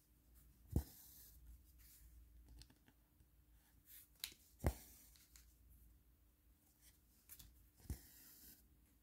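Diamond painting by hand: small sharp clicks and taps as resin drills are picked up and pressed onto the canvas. The loudest clicks come about a second in and just under five seconds in, with short scratchy rustles of the canvas's plastic film.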